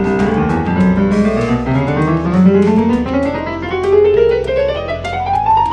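Yamaha PSR-295 portable keyboard played loudly: a fast run of notes climbing steadily in pitch over low held bass notes. Its low-volume fault has just been repaired.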